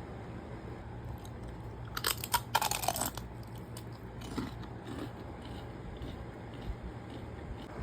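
Crunchy bites and chewing of food: a quick run of crunches about two to three seconds in, then a few fainter crunches.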